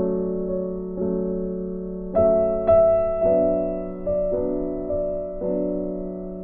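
Background piano music: slow, gentle chords, a new one struck about every second and left to ring and fade.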